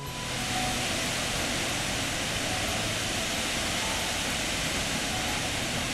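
Steady, even rush of water pouring over Gokak Falls, a large waterfall on the Ghataprabha River.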